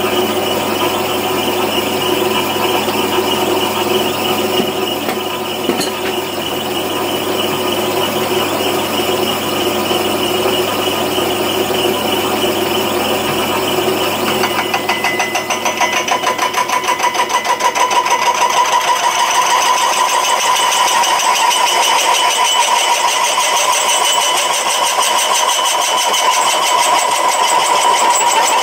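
Lathe turning a boring head, its boring bar cutting through the worn bearing bore of a Landini 6550 tractor steering arm on another pass. A steady machine whine with ringing cutting tones; from about halfway it takes on a fast pulsing and a stronger mid-pitched tone.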